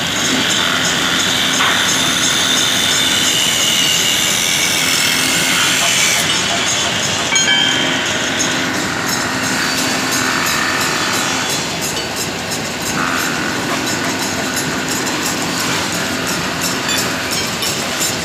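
Woodworking machine running and cutting wood: a loud, steady, dense noise with a low hum that comes and goes.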